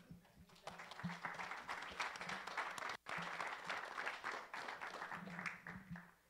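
Congregation applauding. The clapping starts about half a second in, breaks off for an instant about halfway through, and dies away near the end.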